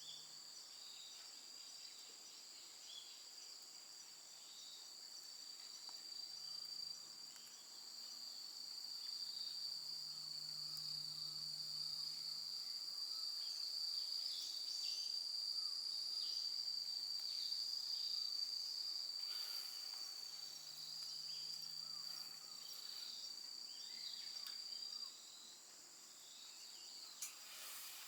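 Insects trilling in a steady, high-pitched continuous buzz that swells through the middle and drops off abruptly near the end, with faint scattered ticks beneath it.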